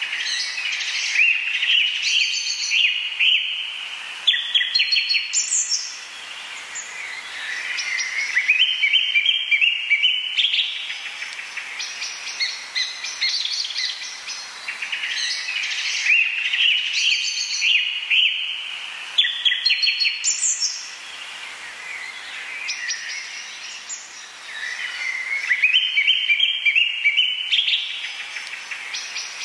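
Birdsong: chirps and quick rising, stepped trilling phrases. The same run of phrases comes round about every fifteen seconds, as a repeating recording of background birdsong.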